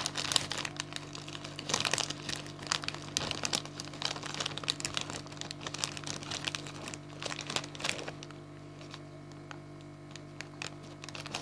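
A plastic snack packet crinkling and crackling as hands open it and rummage inside, busy at first and quieter over the last few seconds.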